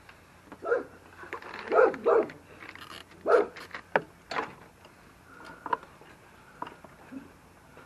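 A dog barking several short barks, mostly in the first half, with a couple of sharp clicks among them.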